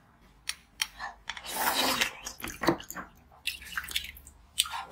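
Soft, slushy frozen green-coloured water being scooped and eaten with a metal spoon: sharp clicks and scrapes of the spoon, and a wet crunching stretch of mouthfuls of ice about halfway through.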